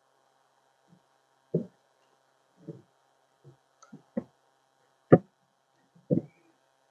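Irregular knocks and taps of a wooden beehive frame and its wire-tensioning jig being handled on a wooden workbench. There are about seven short knocks, the loudest about five seconds in, over a faint steady hum.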